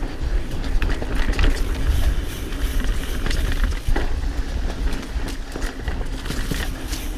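Pivot Switchblade mountain bike ridden over a dirt trail: tyre noise and wind rumble on the microphone, with the bike rattling and knocking over bumps, one sharp knock about four seconds in.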